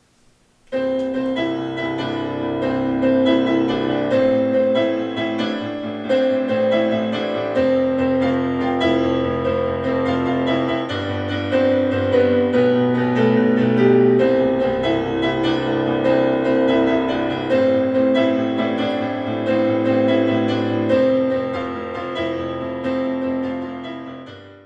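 Outro music: keyboard or piano music with sustained chords over a steady bass line, fading out near the end.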